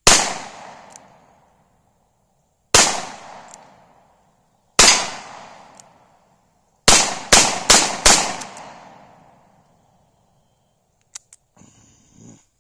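Seven shots from a Taurus 627 Tracker .357 Magnum revolver, each ringing out briefly after the crack. The first three come about two seconds apart, then four follow in quick succession about seven seconds in. A few faint clicks come near the end.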